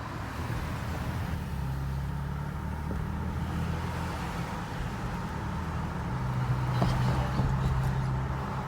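A truck being driven: steady engine hum and road noise, with a few light clicks about seven seconds in.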